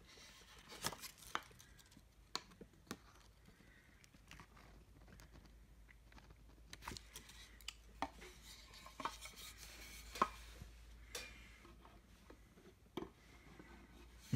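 White-painted wooden rocker parts being handled and sorted, knocking and clacking lightly against each other now and then.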